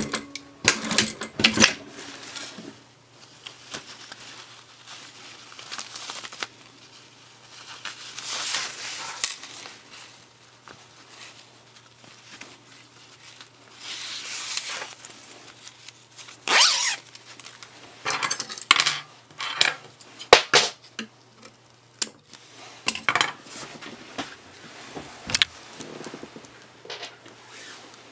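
An industrial sewing machine stitches briefly and stops about two seconds in. Then come irregular handling sounds: fabric and zip rustling and small metal clicks and clinks around the machine, over a low steady hum.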